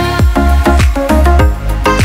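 Background music with a heavy bass line and a steady beat.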